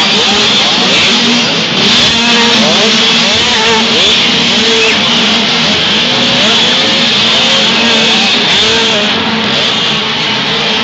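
A pack of motocross bikes accelerating hard away from the start together, many engines revving at once with their pitches rising and falling over one another, easing off slightly near the end.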